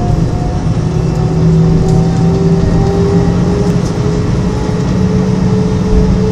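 Jet airliner cabin noise while taxiing: a steady engine rumble, with a whine that rises slowly in pitch.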